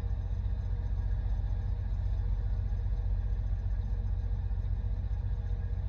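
Steady low rumble of a semi truck's engine and road noise heard inside the cab while driving, with a faint steady hum above it.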